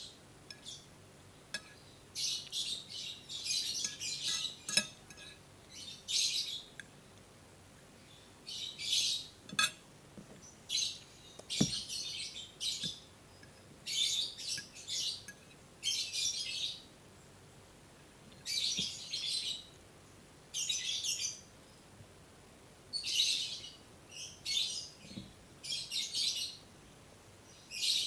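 Close-up eating sounds: wet chewing and lip-smacking on a mouthful of fried instant noodles, in short bursts every second or two. A couple of sharp clicks from a spoon or fork against the plate come in the middle.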